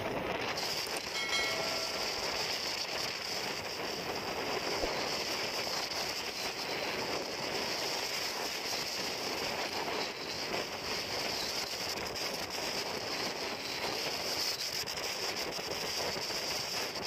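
Steady rush of wind and choppy sea water with a boat engine running underneath, heard aboard a wooden fishing boat under way in rough water.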